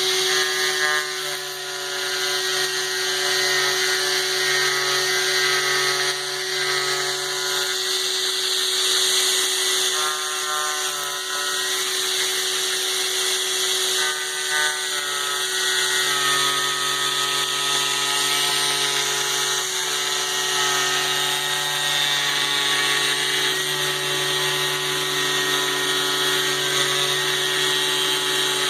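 Stepper motors of a CNC foam cutter running: a whine of several tones that jumps to new pitches every few seconds as the moves change speed, over a steady hum.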